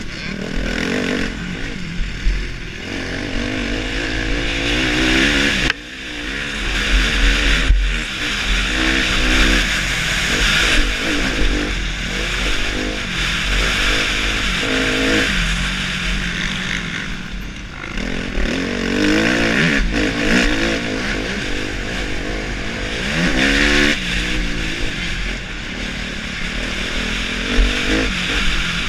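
Suzuki motocross bike ridden hard, heard from the rider's helmet camera: the engine revs up and falls off again and again as it accelerates and shifts around the track, over steady wind and track noise. Two sharp knocks a few seconds in.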